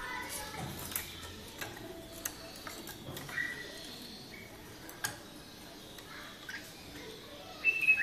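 A pair of bulbuls: scattered light ticks and taps, with a few short chirps and one sharp, louder high call near the end.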